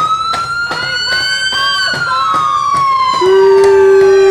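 A siren wailing: its pitch rises and then falls slowly. About three seconds in, a loud, steady, low horn-like tone sounds over it. Sharp clicks recur throughout.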